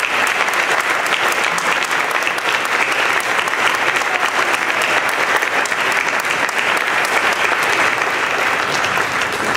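Large crowd applauding, many hands clapping steadily.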